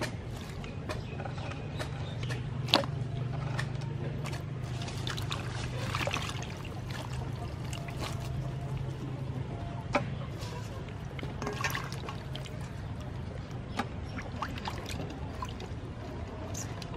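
Water sloshing, splashing and dripping in a stainless steel bowl as hands swish and rinse fresh herbs and chilies, with irregular small splashes and a couple of sharper knocks, one about three seconds in and one about ten seconds in.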